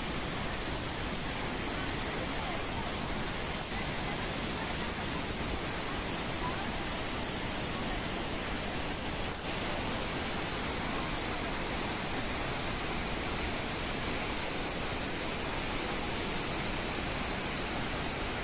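The steady rush of a huge waterfall, the Devil's Throat of Iguazú Falls, its water falling and crashing into the mist below.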